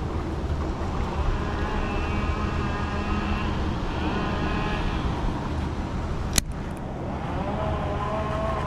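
Baitcasting reel being cranked in after a strike, its gears giving a faint wavering whine, over a steady low rumble. A single sharp click about six and a half seconds in.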